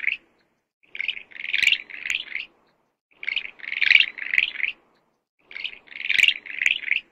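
High-pitched chirping calls in three short bouts of four or five quick notes each, separated by silent gaps of about a second.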